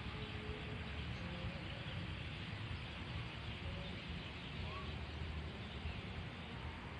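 Outdoor night ambience: a steady low rumble and hiss, with a few faint short tones over it.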